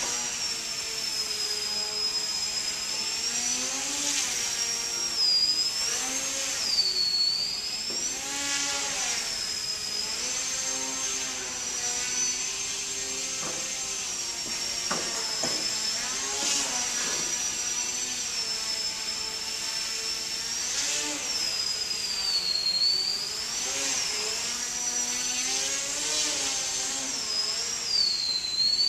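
Small electric motor and propeller of a foam RC airplane whining in flight, its pitch swooping up and down every few seconds as the throttle changes. A steady high tone runs alongside.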